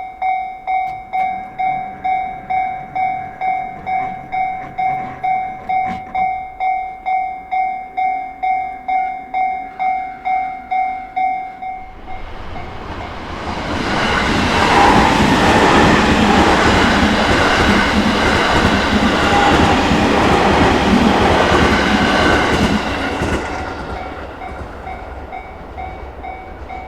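Japanese railway level-crossing warning bell ringing in even electronic dings, about two a second. About halfway through the dings drop away and a train passes over the crossing; its running noise swells, holds for several seconds and fades near the end.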